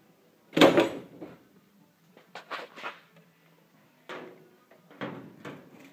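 Lista steel tool cabinet drawers being handled: a loud metal clatter about half a second in, followed by a string of lighter clicks and knocks.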